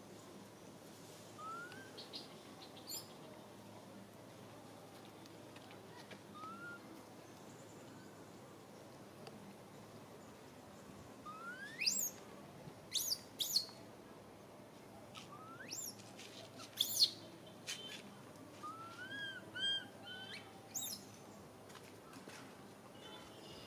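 Infant long-tailed macaque squealing: short, high-pitched cries that rise sharply in pitch. A couple are soft in the first seven seconds, then a run of loud ones comes about halfway through. These are a distressed baby's calls for its mother.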